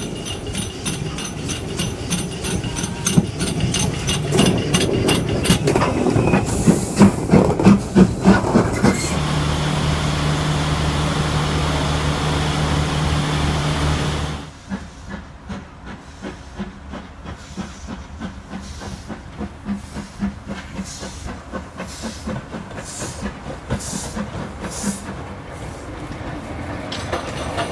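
RPSI steam locomotive No.4, a 2-6-4 tank engine, working along the track with rhythmic exhaust beats and wheel clatter, then standing with a steady hiss of steam. Near the end it pulls away with evenly spaced, sharp exhaust beats.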